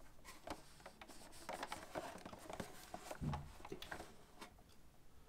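Faint crinkling and clicking of a Hot Wheels 5-pack's plastic blister and card being handled and shifted in the hands, with a soft low bump a little past three seconds in.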